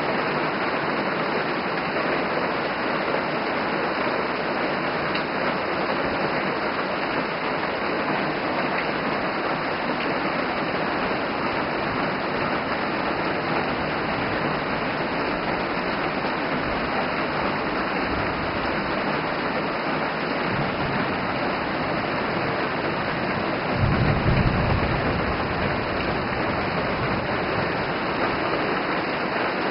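Heavy rain falling steadily, a constant even hiss of downpour. About three quarters of the way through, a low rumble rises for a couple of seconds.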